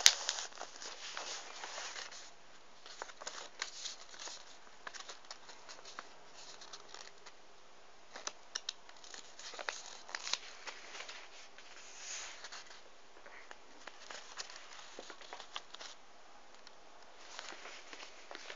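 A sheet of paper rustling and crinkling in the hands as it is folded into a paper aeroplane, in irregular short rustles and clicks, loudest right at the start.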